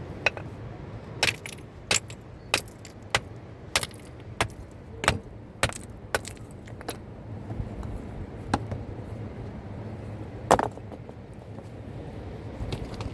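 A steady series of sharp knocks, about one every 0.6 seconds, then a few scattered ones, with the loudest single knock about ten and a half seconds in. Under them runs the steady rush of a fast-flowing river.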